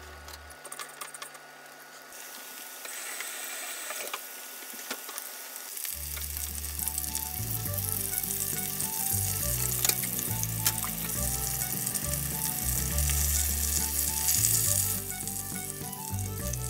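Panko-breaded chicken cutlets deep-frying in hot oil: a steady sizzle that builds about three seconds in, with a few sharp crackles, and dies down near the end.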